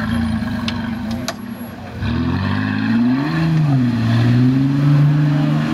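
Engine of a roll-caged off-road 4x4 running low at first, then revved hard about two seconds in: the pitch rises, dips briefly, and is held high as the vehicle pulls through deep mud. A couple of sharp clicks are heard near the first second.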